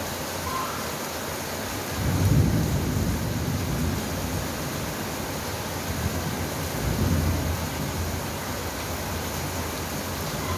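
Steady rain falling, with thunder rumbling in about two seconds in and rolling on for several seconds, then swelling again near the middle.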